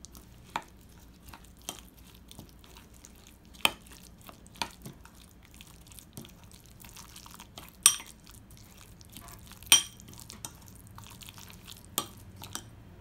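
Metal spoon stirring a thick chili-paste seasoning in a glass bowl, scraping and clicking irregularly against the glass. Two sharper, ringing clinks come a couple of seconds apart past the middle.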